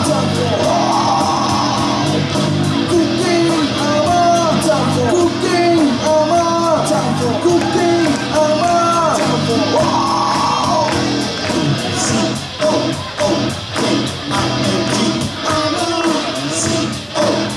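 A band of electric guitar, bass guitar, keyboard and drum kit playing a song, with a sung melody over a steady drum beat.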